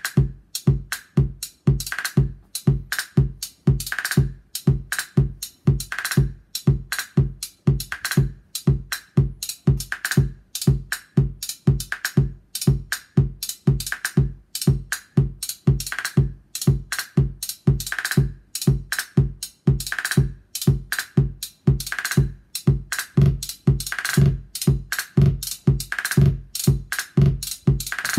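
Modular-synth drum machine playing a steady electronic beat: low kick thumps with a brighter accent hit about every two seconds. It is driven by a vector sequencer, with ratcheted repeat hits made by Maths running as an LFO.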